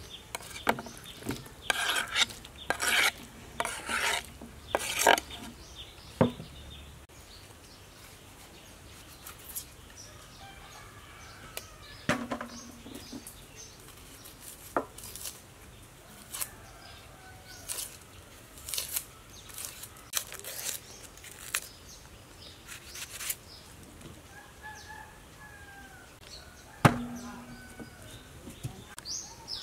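Hand food preparation: papery red onion skins rustling as they are peeled, and knocks as onions are set into an aluminium bowl. The loudest knock, near the end, leaves a brief metallic ring. Faint bird calls can be heard in the background.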